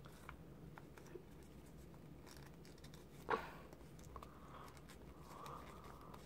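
Paper being folded and creased by hand: faint rustling with one crisp crackle about three seconds in.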